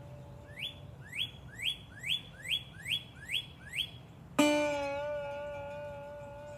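A bird repeats a short, rising whistled note eight times, a little over two a second. About four and a half seconds in, a guitar string is plucked sharply, the loudest sound here, and its note rings on and slowly fades.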